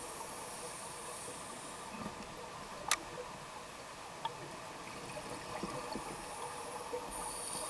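Underwater sound through a camera housing: a steady low hiss with faint scattered ticks, and exhaled scuba bubbles hissing at the start and again near the end. One sharp click comes about three seconds in.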